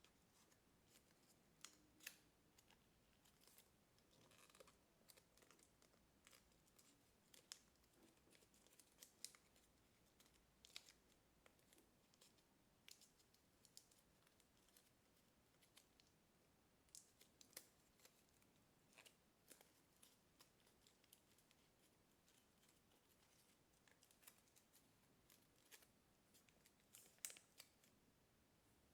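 Faint crisp rustles and irregular clicks of thin kami origami paper being folded and creased by hand, the sharpest crease near the end.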